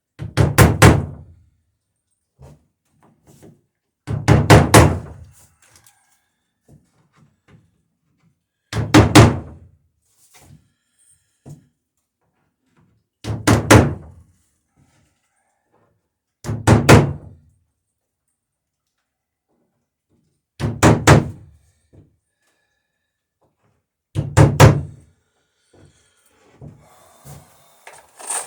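Hammer blows riveting the planking of a wooden dory hull: quick groups of three or four sharp strikes, seven groups about four seconds apart, each ringing briefly through the planks.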